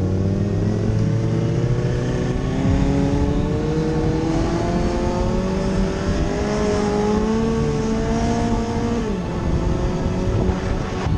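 A motorcycle engine pulling under steady throttle. Its pitch rises slowly and evenly for about nine seconds, then falls away sharply near the end.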